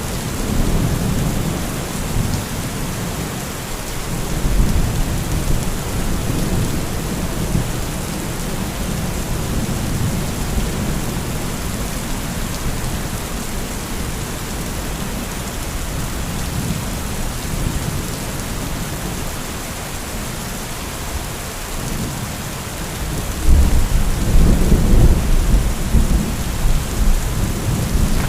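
Heavy thunderstorm: steady heavy rain with thunder rumbling low underneath, and a louder roll of thunder starting near the end.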